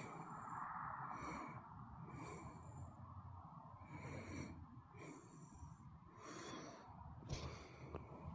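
Heavy breathing close to the microphone, breaths in and out roughly once a second. A brief knock comes near the end.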